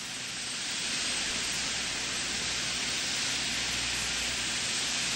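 A steady hiss of noise with no distinct events, growing a little louder about a second in.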